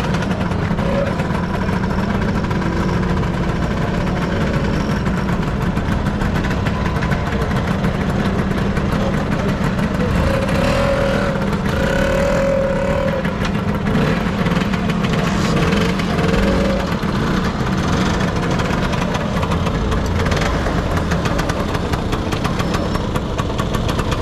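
Motor scooter engines running steadily, with a few short higher tones partway through.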